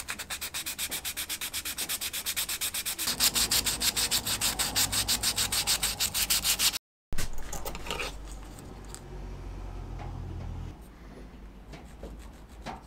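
Edge of a Kydex knife-sheath blank being sanded by hand with a folded strip of sandpaper, in quick, even back-and-forth strokes of about four or five a second. The sanding breaks off abruptly about seven seconds in, leaving only faint sounds.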